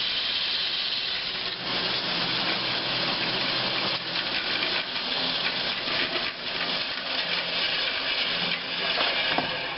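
Band saw running and cutting wood: a steady hissing cut with small dips in level as the blade saws the slots of a wooden feather board.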